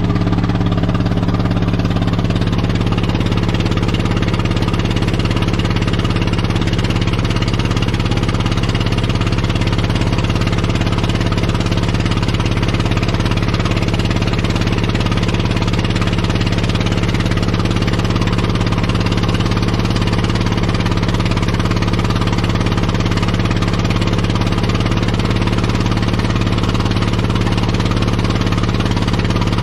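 An engine running steadily, its pitch settling slightly lower in the first couple of seconds, then holding even.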